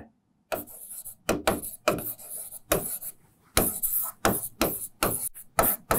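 Stylus scratching and tapping across the surface of an interactive whiteboard screen in a quick series of short strokes as words are handwritten, starting about half a second in.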